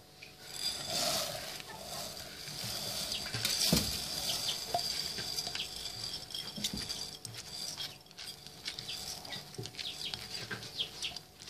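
Washed rice pouring from a plate into a pot of hot butter, oil and fried spices: the grains patter into the pot and sizzle in the fat as a stream of many small ticks.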